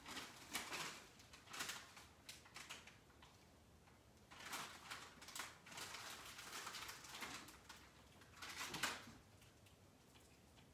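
Near silence in a large room, broken by faint, irregular rustles and light knocks every second or so.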